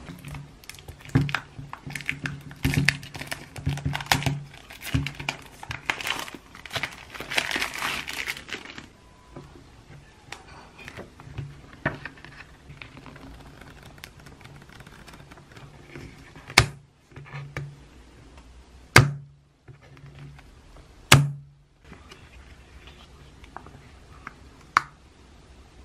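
Paper rustling and crinkling as small composition notebooks are handled, opened and leafed through, busiest in the first third. Later come three sharp knocks a couple of seconds apart, the loudest sounds here.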